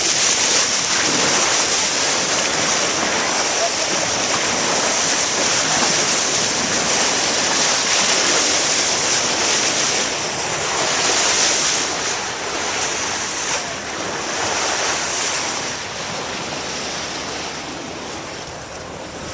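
Sea water washing and splashing against a small boat, with wind buffeting the microphone: a steady, loud hiss that eases a little in the second half.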